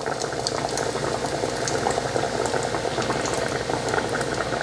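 Breaded chicken piece deep-frying in hot oil during its first fry, the oil bubbling and crackling steadily around it.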